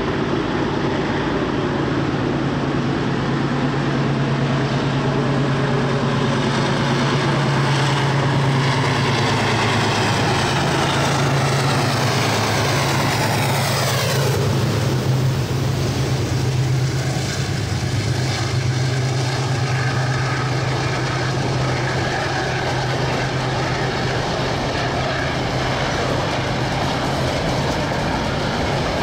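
KiwiRail diesel-electric locomotive working at full power, its engine running with a steady deep drone. About halfway through, a whine sweeps down in pitch.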